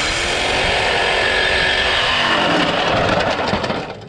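Corded Craftsman reciprocating saw running and cutting through a car's rusty steel exhaust pipe. The motor winds up at the start, runs loud and steady through the cut, then dies away shortly before the end.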